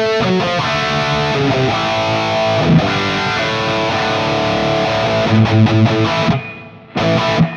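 Distorted electric guitar with PAF-style humbuckers, played through a Fractal Audio FM9 Turbo amp modeller with a Friedman HBE amp model and plate reverb: chords and riffs, stopping about six seconds in, then one short chord near the end. As the playing stops, a faint ringing noise lingers, which the player puts down to the unpotted PAF pickups being microphonic.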